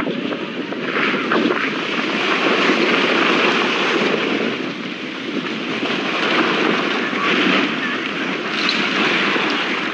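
Debris flow of mud and rocks surging down a road: a loud, continuous rushing noise with scattered sharp knocks of rocks striking.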